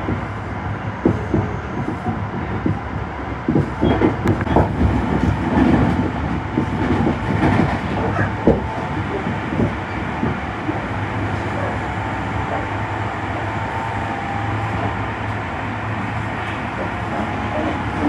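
Tobu 50090 series electric train running at speed, heard from inside the passenger car: a steady rumble with the wheels knocking over rail joints, the knocks thickest in the first half.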